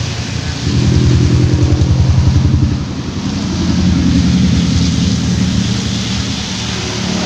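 Road traffic passing on a wet road. A motorcycle engine goes by close, loudest from about half a second to three seconds in, then a pickup truck passes more quietly, both over the steady hiss of tyres and traffic.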